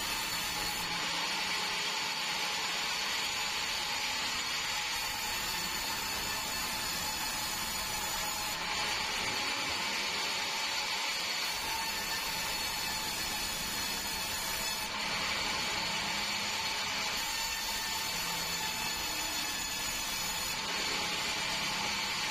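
Sawmill log band saw running steadily, a constant mechanical noise with a steady high whine.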